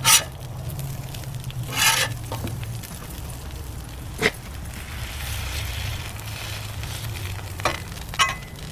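A metal spatula strikes and scrapes the steel top of a Blackstone griddle about five times, the longest scrape about two seconds in, while slices of meatloaf sizzle on the hot plate. A steady low hum runs underneath.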